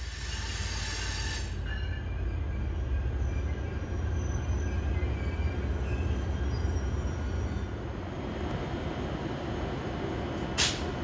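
NJ Transit ALP-45DP locomotive and its train approaching and rolling past, a deep low rumble that swells over the first few seconds and then eases, with faint high wheel squeal on the curved track. One sharp click comes near the end.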